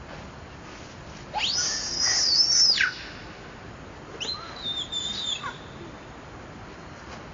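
Infant macaque screaming twice while an adult grabs it: a long high-pitched scream that rises, holds and drops away, then a shorter, wavering scream about a second later, the distress cries of a baby monkey being handled roughly.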